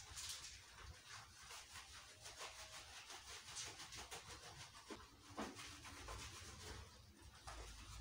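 Faint, irregular rubbing strokes of hands scrubbing shampoo lather into a wet Japanese Spitz's coat.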